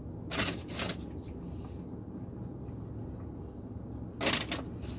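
A few brief rustling noises, two near the start and a louder one about four seconds in, over a steady low hum inside a car, while a sandwich is being eaten.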